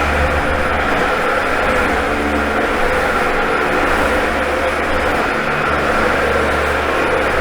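Dyson vacuum cleaner running steadily as it is pushed over the floor, a loud, even motor whine and rush of air.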